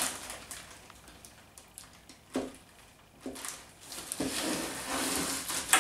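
A plastic enclosure full of packing peanuts being handled on a table: two light knocks about a second apart, then rustling and scraping of plastic and packing peanuts near the end.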